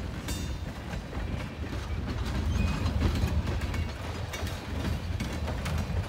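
Freight cars of a passing train rolling by with a steady low rumble and repeated clicks of wheels over rail joints. A brief high squeal comes near the start.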